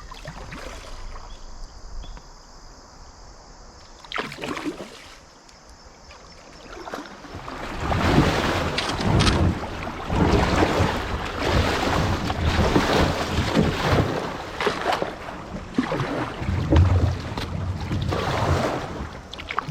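A kayak running a shallow riffle: water rushing and splashing against the hull, with repeated paddle strokes and knocks. It is fairly quiet at first and grows loud about a third of the way in.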